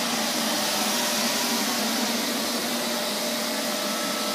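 Neato XV-21 robot vacuum cleaner running steadily: an even motor-and-suction hiss with a faint steady hum.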